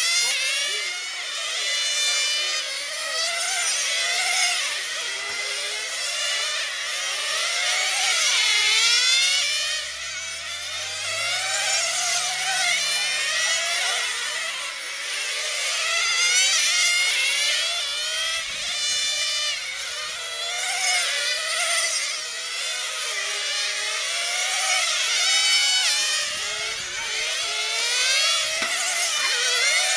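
Several 1/10 scale nitro RC touring cars' small two-stroke glow engines running at high revs, high-pitched and overlapping, their pitch repeatedly rising and falling with the throttle as the cars accelerate and slow for corners.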